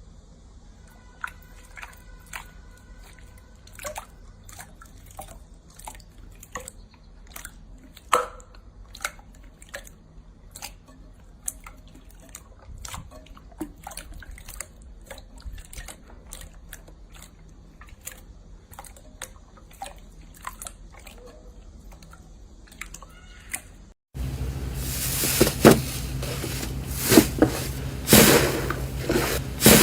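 Slime being squeezed and poked by hand: scattered small clicks, pops and wet crackles. About 24 s in, a cut to a louder clip with dense, rapid crackling and popping over a low hum.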